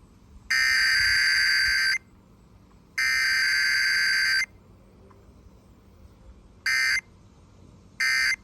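Emergency Alert System SAME digital data tones: two long bursts of the two-pitch warbling code about a second and a half each, then, after a pause, two short bursts near the end. The long bursts are the header code and the short ones the end-of-message code.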